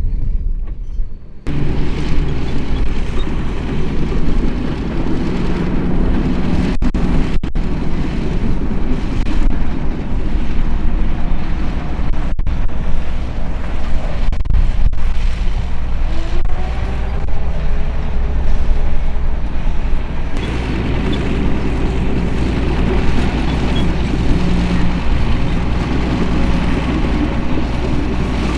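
Diesel engine of heavy earthmoving machinery running under load, a deep steady rumble. The sound changes abruptly about a second in and again about twenty seconds in, and a brief rising-and-falling whine comes midway.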